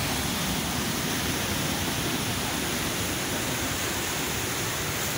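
Mountain creek rushing in small cascades between boulders: a steady, even roar of white water.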